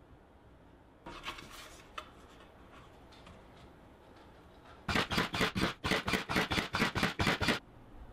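A nail gun firing about a dozen nails in quick succession, roughly five a second, fastening two glued plywood sheets together; before it, a light scrape of the board being set in place.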